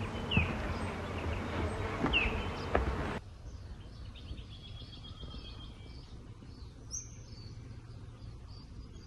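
Outdoor garden ambience with birds chirping: a couple of short down-sweeping calls in the first few seconds, then the background drops suddenly about three seconds in to a quieter stretch with faint bird trills.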